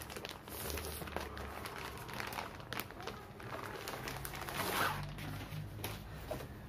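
Thin plastic bag rustling and crinkling as it is handled and pulled open. The rustling comes in uneven bursts and is loudest a little past the middle.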